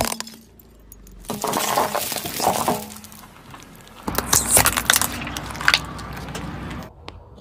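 A car tyre rolling onto a small plastic tub of green gel, with the plastic cracking and snapping several times as the tub splits and the gel squeezes out. A shorter run of crackling about a second in comes from something else being crushed under a tyre.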